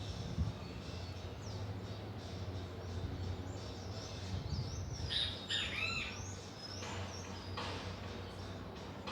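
Small birds chirping, with scattered short calls and a burst of louder, swooping calls about five to six seconds in, over a steady low hum.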